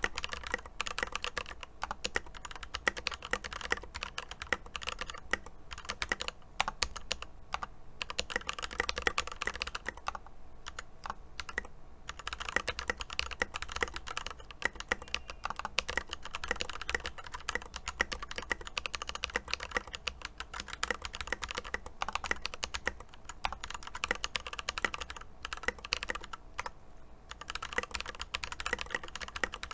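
Typing on an Epomaker EP84 mechanical keyboard fitted with lubed Glorious Panda tactile switches and double-shot Tai-hao keycaps: a fast, continuous run of keystroke clacks with a few brief pauses.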